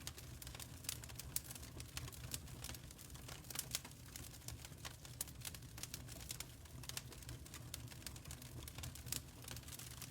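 Wood fire crackling, with many small irregular pops and snaps over a steady low rumble of the flames.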